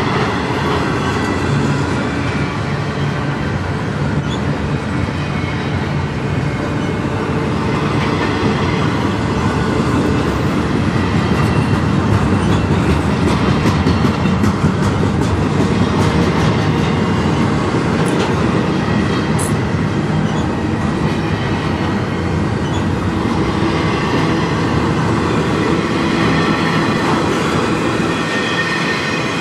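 Double-stack intermodal container cars of a freight train rolling past, a steady rumble and rattle of steel wheels on rail, a little louder about halfway through.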